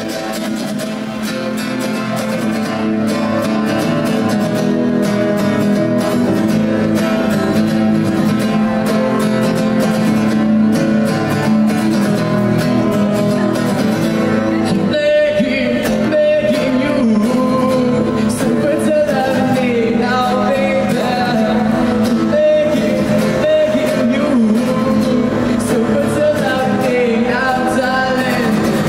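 A woman singing a song over instrumental accompaniment. The first half holds only steady accompaniment chords, and her voice comes in about halfway through.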